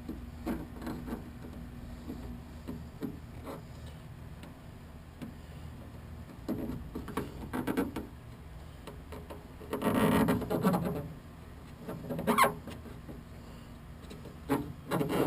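Hands handling and rubbing sound-deadening mat against the door's sheet metal: scattered taps and rustles, with a louder scraping rustle about ten seconds in and a shorter one a couple of seconds later.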